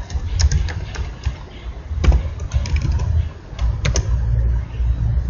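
Typing on a computer keyboard: irregular keystroke clicks, with sharper ones about two and four seconds in, over a low rumble.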